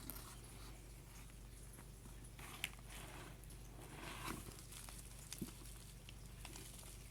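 Faint handling of a paper thank-you card: a few soft clicks and rustles over a steady low room hum.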